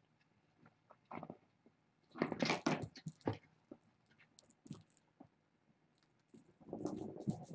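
Kittens scuffling about in play, with short bursts of rustling and scratching, the longest about two seconds in and another near the end.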